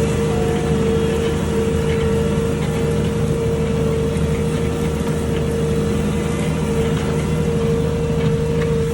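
Ford 8340 tractor's diesel engine running steadily, with a constant whine over its drone.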